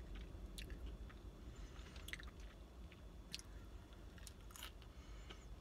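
A person chewing and eating loaded curly cheese fries close to the microphone, with scattered short mouth clicks over a faint low hum.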